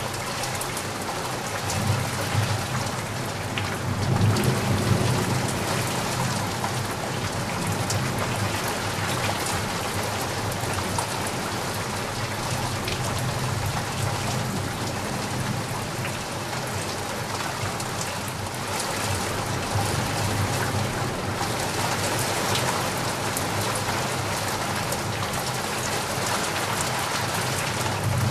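Steady, heavy rain falling, an even hiss of countless drops, with a low rumble underneath that swells about four seconds in and again near twenty seconds.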